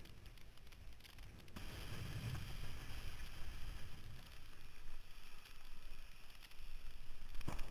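Wind rushing over the microphone and water hissing and splashing past a windsurf board under sail, with a heavier low rumble about two seconds in and a single sharp knock near the end.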